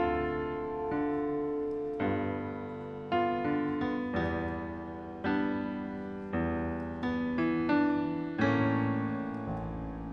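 Slow piano music: chords and single notes struck about once a second, each left to ring and fade before the next.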